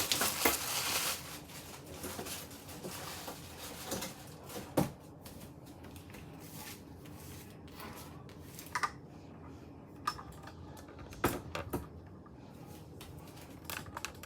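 Plastic packaging rustling for about the first second, then scattered light knocks and clicks as the unboxed air fryer oven is handled.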